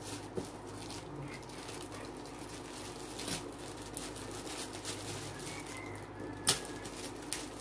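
Clear plastic wrap crinkling and rustling as hands peel it off a cardboard keyboard box, with scattered light clicks and one sharp tap about six and a half seconds in.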